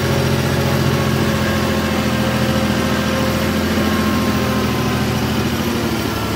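New Holland compact tractor's diesel engine running steadily at an even speed as the tractor drives along.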